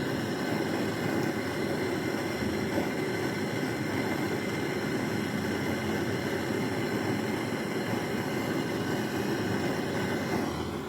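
Steady machine running noise with a hiss: a deep freezer's refrigeration system running while it is charged with R134a refrigerant gas.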